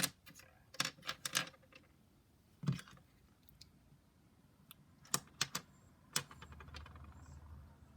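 Loose plastic pieces of a dismantled 5x5 Rubik's cube clicking and tapping against each other as they are picked through by hand: a few scattered clicks in small clusters with pauses between. A faint low hum comes in near the end.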